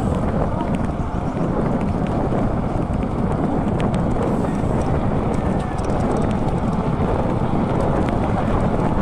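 Steady wind rush on the microphone of a mountain bike in motion, with a few faint ticks in the middle.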